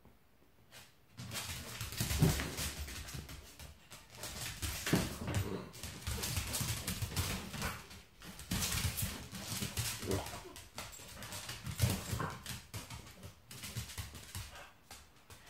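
Cavalier King Charles Spaniel whimpering and scrambling on a hard wooden floor as it chases a laser dot, in noisy bursts that start about a second in.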